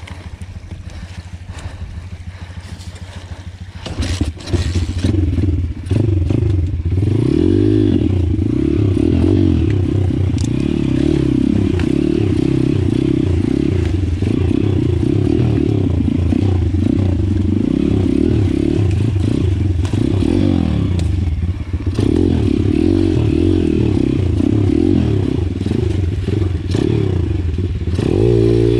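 Pitbike's single-cylinder four-stroke engine running under load while ridden on an off-road trail, its revs rising and falling. It is fainter for the first few seconds, then loud from about four seconds in.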